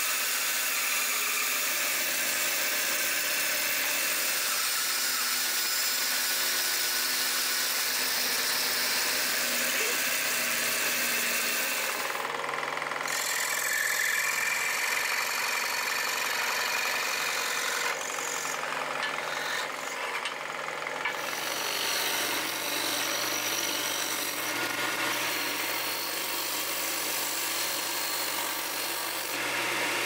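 Scroll saw running and cutting birch plywood, a steady machine noise whose hum changes a few times. Near the end a disc sander takes over.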